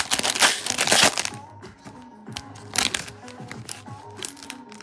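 Foil wrapping of a trading card pack crinkling loudly for about the first second as it is handled, then only background music with a few light clicks.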